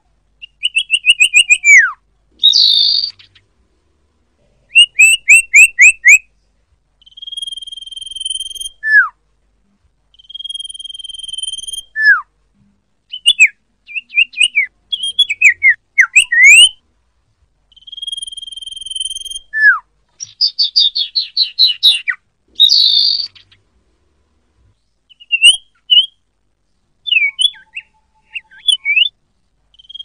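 Common iora (cipoh) calling. It gives long whistles held on one pitch, each followed by a quick falling note. These mix with fast strings of short rising notes and, twice, a harsh buzzy chatter.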